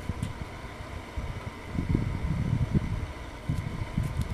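Irregular low rumbling and bumping on the microphone, the handling noise of the camera being moved and repositioned. It swells about two seconds in and again near the end.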